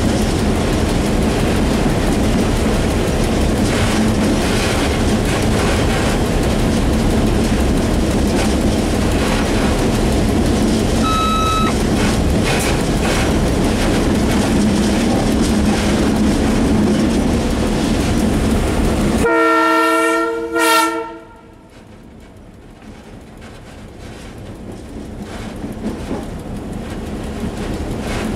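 Class 661 (EMD G16) locomotive's two-stroke V16 diesel and its wheels running steadily over the rails with track clicks, and a brief beep about a third of the way in. About two-thirds through the horn sounds one chord of about two seconds, a warning for a level crossing just ahead. After it the running sound drops away and then slowly builds back.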